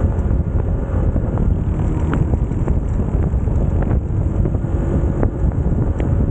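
Motorcycle running steadily at road speed under heavy wind noise on the microphone.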